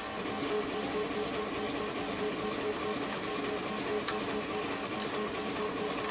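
A 3D printer is running, its stepper motors whirring in short, repeated tones. A few sharp metallic clicks come as a hex key turns a bolt; the loudest is about four seconds in.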